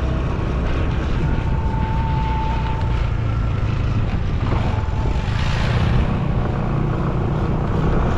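Engine of a moving motor vehicle running steadily, a continuous low hum with a rush of noise over it.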